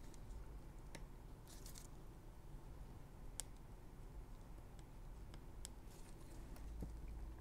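Quiet room tone with a few faint, scattered clicks and short rustles from gloved hands handling a small circuit board and flashlight; one sharper click about three and a half seconds in.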